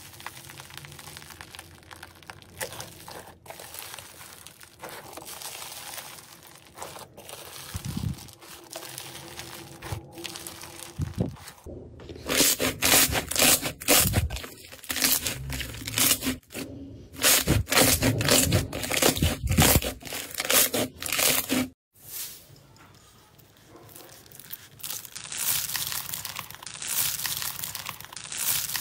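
Hands rummaging in loose foam beads make a dense crackling rustle. After about twelve seconds it gives way to louder wet squishes and pops as hands knead and press thick pink slime. Near the end comes a crackling crunch of fingers pressing foam beads mixed into clear slime.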